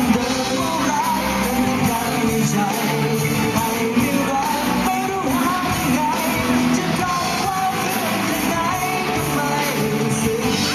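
Live band and singer performing a Thai pop-rock song, the voice carried over the full band.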